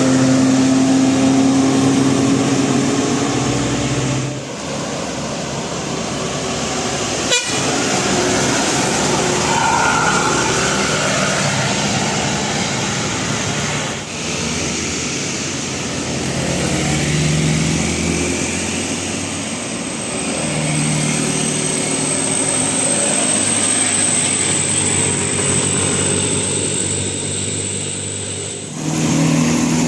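Indonesian bus telolet 'basuri' musical horn sounding held notes for about four seconds, then breaking off. Road and engine noise follows, with a sharp click about seven seconds in and short bursts of horn notes later on.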